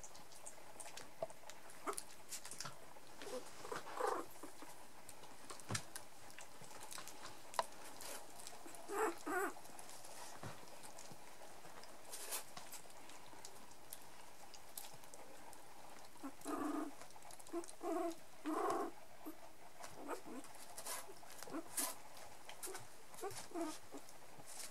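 Nearly three-week-old toy poodle puppies giving short whimpers and grunts now and then, with a cluster of them about two-thirds of the way through, over scattered small clicks and scuffles.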